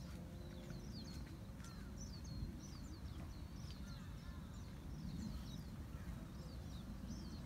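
Small birds chirping in many quick, short, high calls over a steady low rumble.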